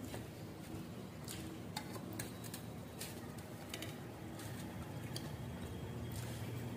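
Quiet eating by hand from steel plates: scattered soft clicks and taps of fingers on the metal and mixing rice, with chewing and mouth sounds, over a low steady hum.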